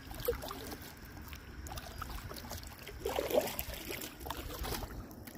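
Water splashing and lapping around a Lifetime Tamarack Pro 103 kayak as it is paddled, with a few light knocks.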